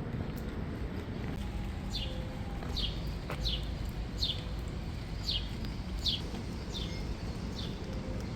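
A bird repeating short, descending chirps, about one a second, over the steady low rumble of the street.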